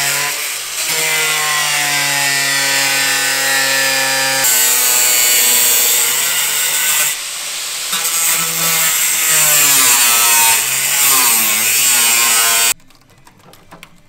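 Makita angle grinder with a thin cut-off disc cutting through rusted sheet steel of a car's rear wheel arch: a loud, steady whine whose pitch shifts as the disc bites and eases. It stops suddenly near the end, followed by a few light clicks of the cut metal being handled.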